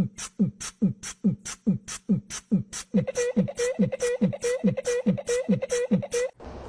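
A rhythmic beat-box style groove: a deep kick that drops in pitch alternates with a crisp hi-hat hiss, a little over two beats a second. About three seconds in a steady humming note joins, and the beat cuts off suddenly just before the end.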